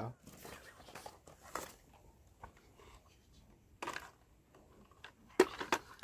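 Small cardboard boxes of deworming tablets being handled and shuffled, with faint rustling of packaging and a few short scuffs, several close together near the end.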